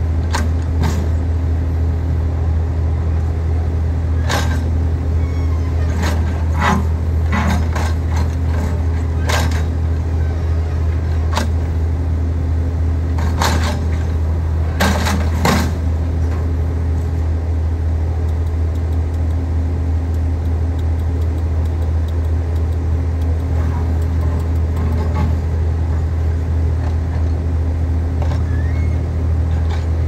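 Diesel engine of a Case backhoe loader running steadily with a deep hum while the backhoe arm digs. Between about four and sixteen seconds in, a string of sharp knocks and clanks cuts through, a dozen or so, two of them in quick pairs near the middle.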